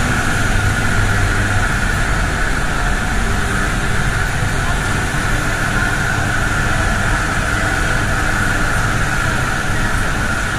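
Steady, loud running noise of a pumped-storage hydroelectric turbine-generator unit in its machine hall: a constant low hum with a steady higher whine on top, unchanging throughout.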